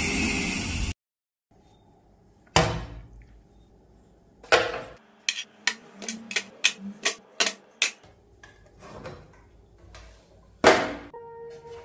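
A loud whooshing intro sound that cuts off about a second in, then sharp knocks and a quick run of about eight clicks as a clear plastic box holding yellow plastic gears and metal rods is handled and knocked against a workbench.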